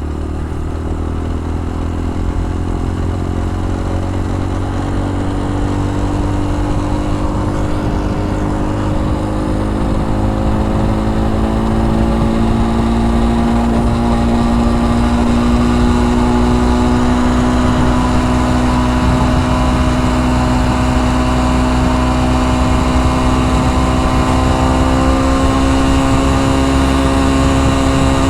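Dax-style motorbike's small four-stroke single-cylinder engine pulling under way, its pitch rising slowly as it gathers speed and then holding steady at cruise, with wind rumble on the microphone.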